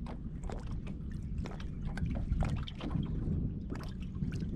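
Small waves lapping and slapping against the bass boat's hull in irregular little splashes, over a steady low rumble of wind on the microphone.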